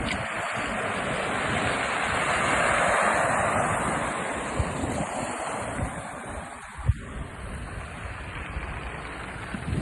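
Sea waves surging up the beach, the rush of surf swelling to its loudest about three seconds in and then draining away, with wind buffeting the microphone. The tide is coming in high.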